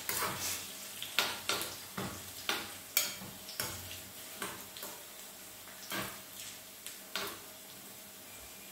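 A metal spoon stirring and scraping in a small pan of tempering (mustard seeds, curry leaves, ginger and green chillies frying in oil on a gas flame), making irregular clicks and scrapes over a faint sizzle.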